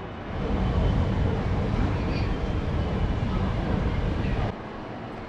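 Low, steady rumble of a moving escalator being ridden, cutting off abruptly near the end.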